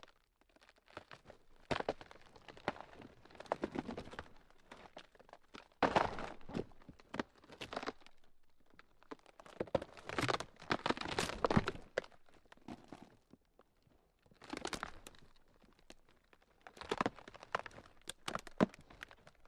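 Ground cracking: irregular runs of sharp crackling and crunching, coming in clusters separated by brief quieter gaps.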